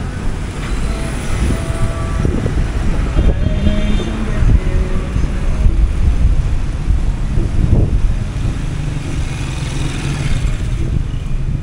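Street traffic: motorcycles, motorcycle-sidecar tricycles and cars running and passing, with a tricycle's small engine close by near the end.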